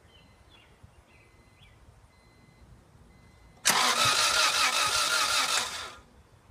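1997 Acura Integra GSR's four-cylinder engine being cranked by the starter for about two seconds, beginning a little over halfway through, then stopping without catching: a no-start that new spark plugs and wires have not cured.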